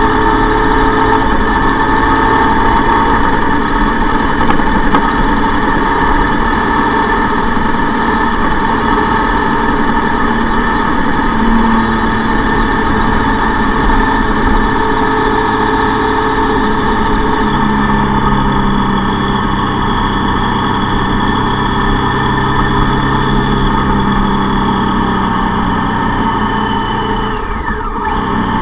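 A motorcycle-type engine running steadily while riding, heard on board. Its low note shifts slightly a little past halfway.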